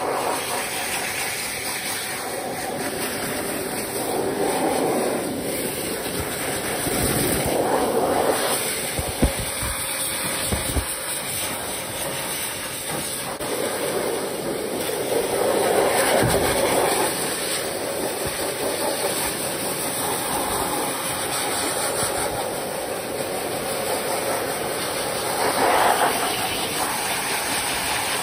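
Pet grooming dryer blowing air at a wet long-haired cat's coat: a steady rushing hiss that swells louder a few times.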